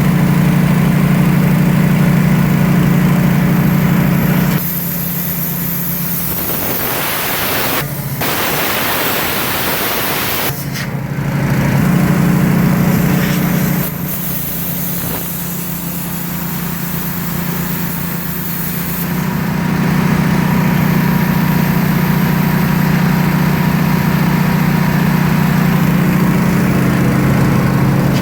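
A small engine runs steadily throughout as a pitched hum. From about five to ten seconds in, the loud hiss of a plasma cutter cutting into steel pipe rises over the hum, with a brief break near eight seconds and a short burst again around eleven seconds.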